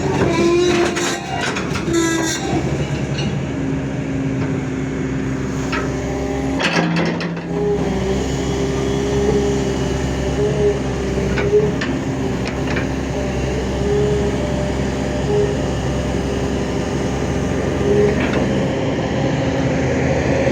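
Heavy diesel engine running steadily: a low drone with a higher tone that sounds on and off.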